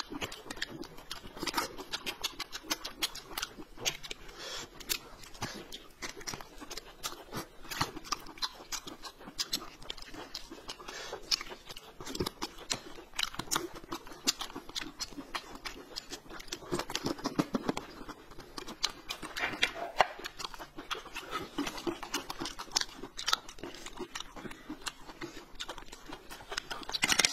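Close-miked eating sounds: chewing, smacking and small clicks of mouths and hands on thin pancake wraps rolled around meat, with a few brief muffled murmurs.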